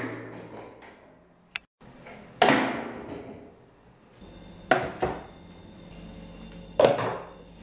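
Flipped plastic drink bottle knocking down onto hard surfaces: several sharp knocks that ring out briefly, one of them a quick double knock.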